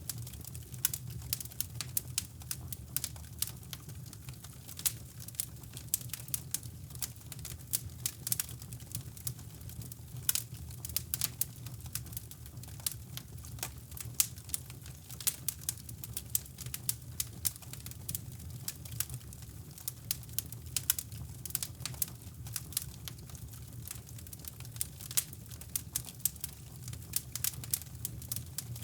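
Fireplace fire crackling: many irregular sharp pops and snaps over a low, steady rumble.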